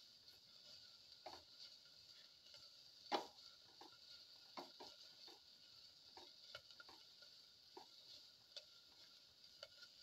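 Spatula clicking and scraping against a stainless steel pan while stirring sliced shallots. The clicks are faint and irregular, with one louder knock about three seconds in.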